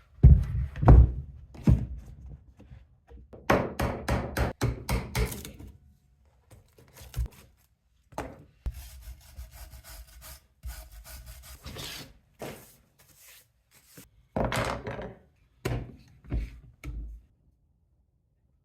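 Pieces of wood being handled, knocking together in clusters of knocks and thunks, with a stretch of scraping and rubbing in the middle.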